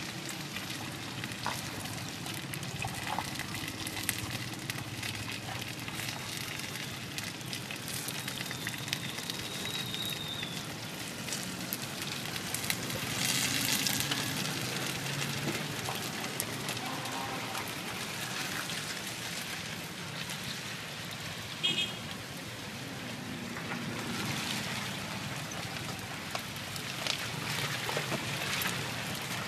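Chive cakes sizzling and crackling in oil in a wide steel wok, with a metal spatula scraping under them to turn them. The scraping is loudest about halfway through.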